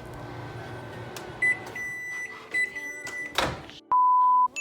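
A kitchen appliance, the microwave or oven, beeping with a high electronic tone in three long pulses over a steady hum. A brief burst of noise follows, then near the end a loud single-pitch censor bleep that covers a swear word.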